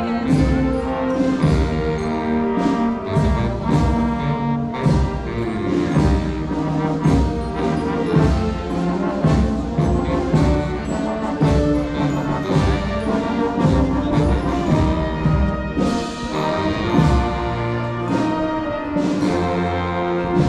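Brass band playing a march, with several brass instruments sounding together over a steady beat.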